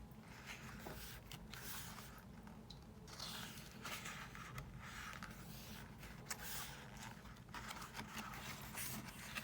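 Paper pages of a photobook being turned and handled: a string of soft, irregular swishes and rustles.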